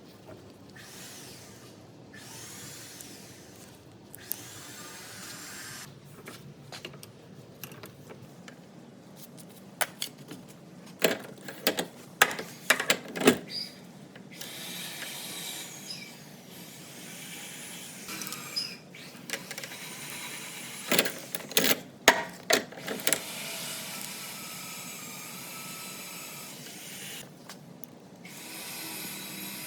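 Hand work on a small metal power tool being taken apart: steady scraping and rubbing, with two bunches of sharp metallic clicks and clinks about ten seconds apart.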